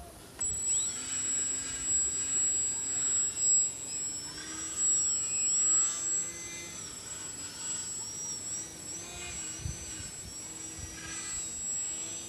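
Small electric RC airplane's motor and propeller whining, the pitch rising and falling with the throttle, over a steady high-pitched tone that starts about half a second in.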